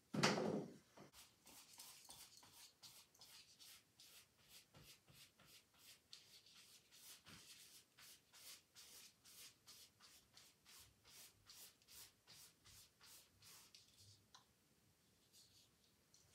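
Paintbrush strokes on a canvas: a long run of short, scratchy dabs and drags, about three a second, easing off near the end. A louder thump right at the start.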